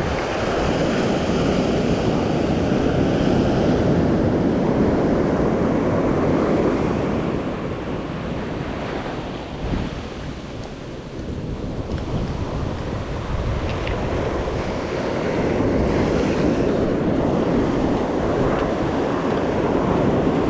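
Ocean surf washing onto the beach, with wind buffeting the microphone. The rush swells and falls, easing about ten seconds in and building again toward the end.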